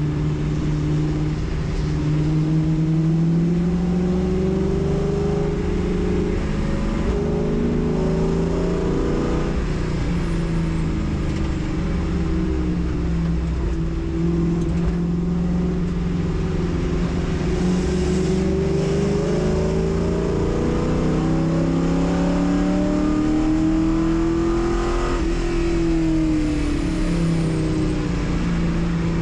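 Race car engine under hard running on track: its note climbs steadily through the revs and drops back sharply a few times, as with upshifts or lifting for corners.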